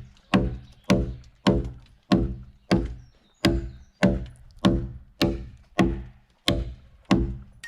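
A hand tool striking a log in a steady rhythm, about one and a half blows a second. Each blow rings briefly and dies away.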